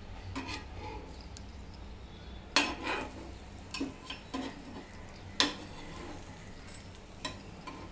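Stainless-steel spatula knocking and scraping against a nonstick pan while a toasting sandwich is pressed and shifted: a few short sharp clinks, the loudest about two and a half and five and a half seconds in.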